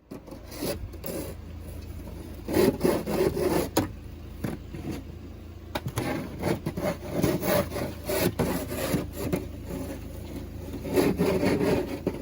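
Snow crunching and scraping in repeated uneven strokes, with several louder bursts.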